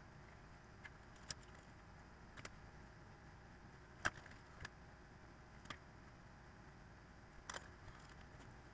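Near silence broken by about seven light clicks and taps as a soldering iron and a reel of rosin-core solder are handled on a bench mat, the sharpest about four seconds in.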